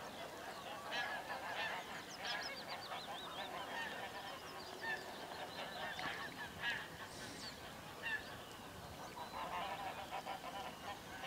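Waterfowl calling, many short calls overlapping one another throughout, fairly faint.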